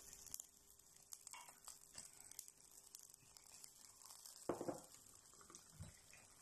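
Near silence: quiet room tone with faint scattered ticks and one brief soft sound about four and a half seconds in.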